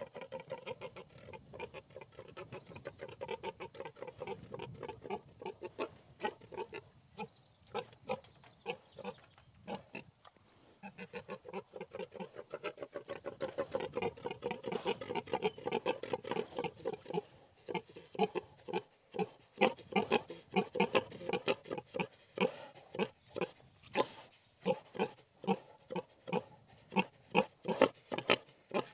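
Pigs grunting in a dense run of short grunts, which turn louder and more separate, about two or three a second, in the second half.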